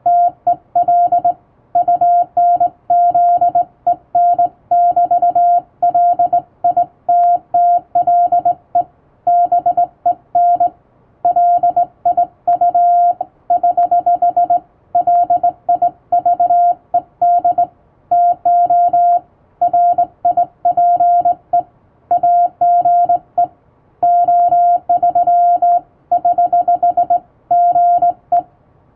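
Hand-sent Morse code from a vertical straight key: a single steady beep keyed on and off in dots and dashes, in short groups of characters separated by brief pauses.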